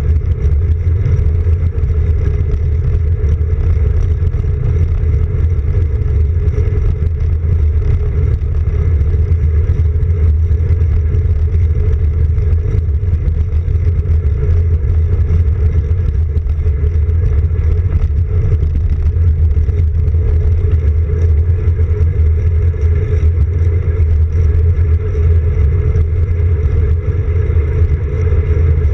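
Steady, loud rumble of wind and road vibration picked up by a handlebar-mounted camera on a road bike rolling along an asphalt path.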